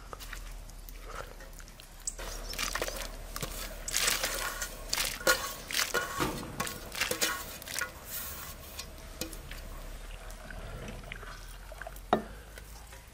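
Chopped carrots tipped from a metal tray splashing into a steaming pot of water, a dense patter of small plops and splashes over several seconds, followed by quieter stirring and a single sharp knock near the end.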